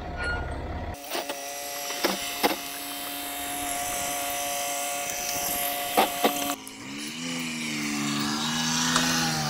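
Land Rover Discovery engine running steadily, then its pitch sagging and rising again over the last few seconds as the revs change. A few sharp clicks are heard along with it.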